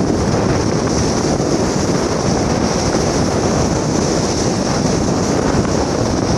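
Wind on the microphone mixed with the steady engine and wake noise of a large passenger ship passing close by, with a steady high hiss over it.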